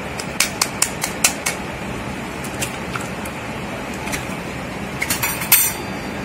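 Egg tapped against the rim of a stainless steel mixer-grinder jar to crack it: a quick run of about six sharp taps, then another cluster of clicks near the end, over a steady background hiss.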